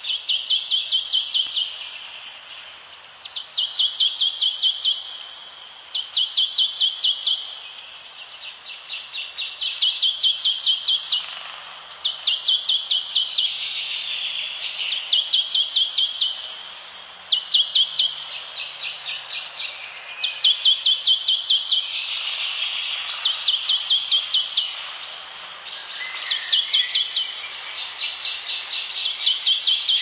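A high-pitched trilled call repeated every two to three seconds. Each call is about a second and a half of quick, even pulses, heard over a steady hiss of forest ambience.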